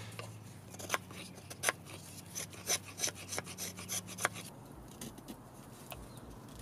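Steel knife blade shaving and scraping a dry wooden leg, a run of short strokes about two a second that grow fainter after about four and a half seconds. The end of the leg is being pared down into a tenon to fit a drilled mortise hole.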